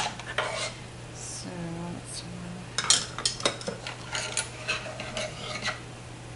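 Metal kitchen utensils clinking and clattering as someone rummages through them looking for a measuring spoon, in a run of quick clinks in the second half, over a steady low hum.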